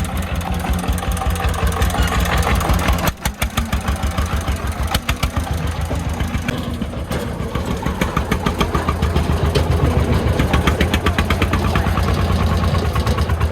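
Homemade công nông farm truck's diesel engine running with a steady, rapid chugging, briefly dipping about three seconds in.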